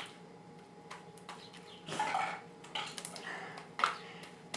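Homemade slime being handled and worked by hand: a few scattered soft clicks and squelches with quiet gaps between.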